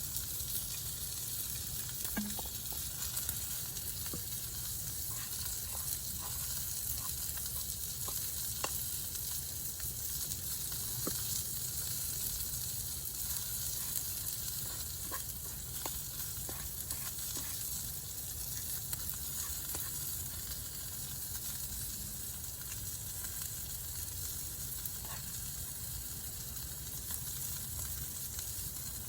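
Chicken frying in oil in a cast iron pan over a campfire: a steady sizzle, with scattered faint pops and clicks.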